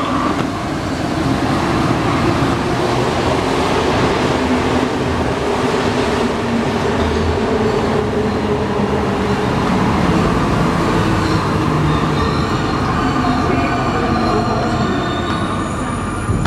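Alstom NS-93 rubber-tyred metro train heard from inside the car, running steadily and slowing as it pulls into a station. A whining tone from the train rises above the running noise in the last few seconds.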